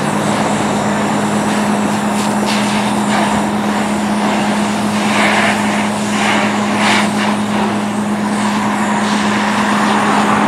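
Fire engine running at a steady pitch, under the hiss of a hose stream spraying water onto a burning car, with a few short louder flares of hissing spray and steam.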